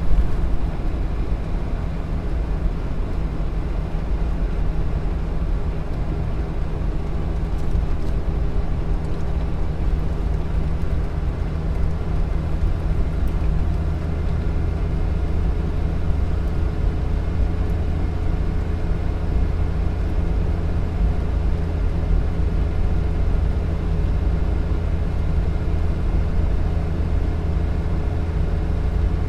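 Car engine and road noise as a continuous low rumble, steady throughout, with a faint hum running through it and no distinct single pass-by.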